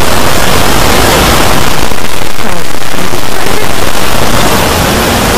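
Loud, dense wall of noise from many video soundtracks layered on top of each other, so that no single voice, tune or sound stands out. It eases off slightly near the end.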